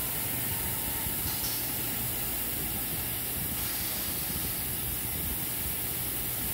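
Steady hiss with a low hum from a powered spin indexer, with its compressed-air line, while it rotates the clamped part. The sound stays even throughout, with no distinct clicks or starts and stops.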